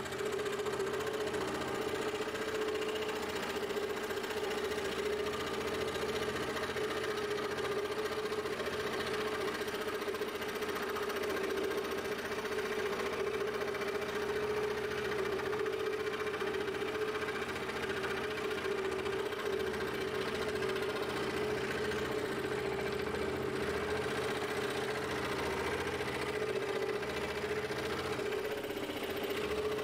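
Scroll saw running with a steady hum, its blade cutting through a block of padauk wood as the piece is fed along the pattern line.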